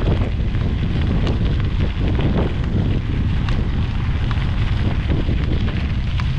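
Wind buffeting the microphone: a steady, deep rumble with no let-up.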